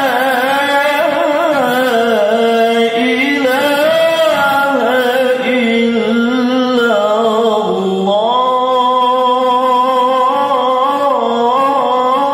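A male qari reciting the Qur'an in the melodic tilawah style. He holds one long unbroken phrase with ornamented turns, dipping low about eight seconds in and climbing again.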